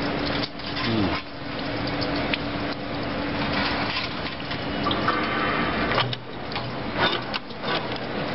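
Steady hum and rushing noise of running factory machinery, with light metallic clicks and knocks from wire and tooling being handled at a chain link fence machine's forming head.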